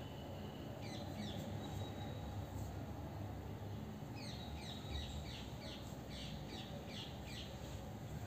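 Birds chirping in quick runs of short, falling chirps, one run about a second in and a longer one from about four to seven seconds, over a low steady hum.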